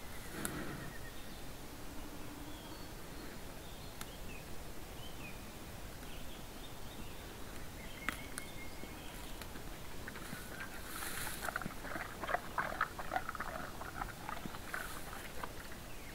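Brown bear feeding with its head down in dry grass and debris: rustling and scattered clicks, building to a busy run of crunching in the last third.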